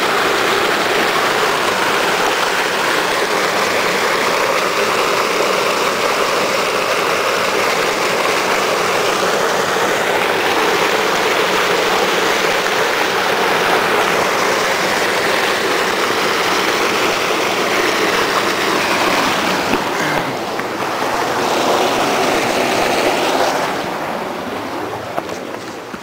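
Rushing stream water pouring over a low concrete ledge, a loud steady rush close to the microphone that gets quieter near the end.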